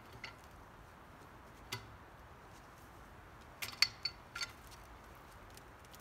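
A few sharp clicks and knocks over a quiet background, with a quick cluster of them about three and a half to four and a half seconds in, one briefly ringing.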